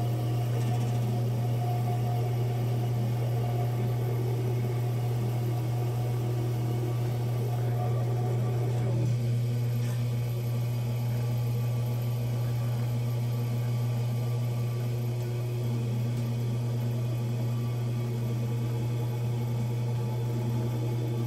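Electric potter's wheel running steadily: a continuous low motor hum with fainter steady tones above it.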